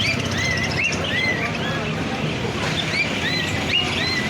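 Small birds chirping, many short arching calls overlapping in quick succession, over a steady low background rumble.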